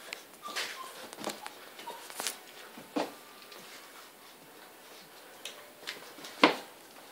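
Great Dane puppies moving about: scattered light clicks and taps, the loudest a sharp knock about six and a half seconds in, with a few brief faint squeaks in the first two seconds.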